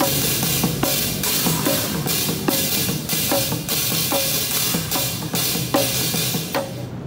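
Two street drummers playing a fast, dense rhythm with sticks on an improvised kit of metal pots, bowls, pans and cymbals, over a steady cymbal wash. Near the end the cymbal wash cuts off suddenly and only separate sharp hits remain.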